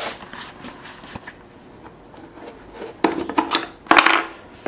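Pin being worked out of a brass door hinge on a plywood board: faint rubbing at first, then a cluster of sharp metallic clicks and scrapes about three seconds in.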